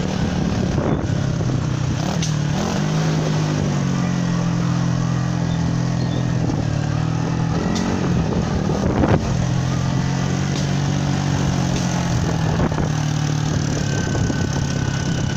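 Motorcycle engine running while riding off, its pitch rising and falling a few times as the throttle changes. There is a sharp thump about nine seconds in.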